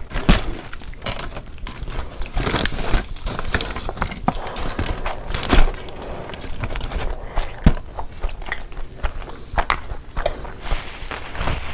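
Close-miked eating of a large frankie wrap: bites and wet chewing with irregular crackles and clicks.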